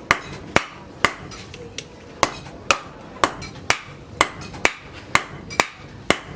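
Blacksmith's hammer striking steel on an anvil while forging an axe head: a steady run of blows about two a second, each with a short metallic ring.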